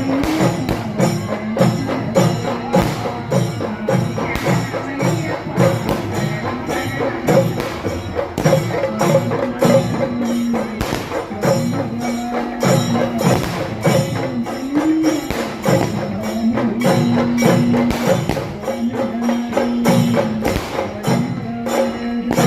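Music with a steady percussion beat and a repeating melody line.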